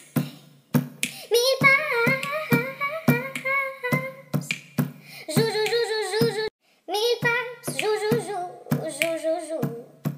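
Music track: a voice singing long, wavering notes over a clicking beat of about two to three clicks a second, with a short break about six and a half seconds in.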